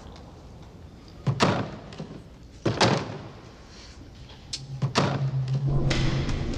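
Three sharp knocks as canned drinks and a cardboard box are handled and set down on a steel counter, then a low steady drone comes in near the end.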